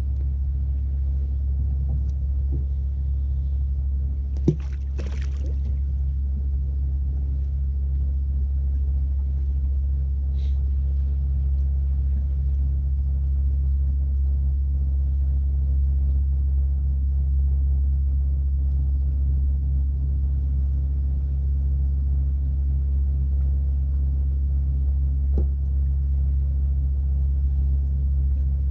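Boat engine running steadily with a low, even rumble. A sharp knock comes about four and a half seconds in.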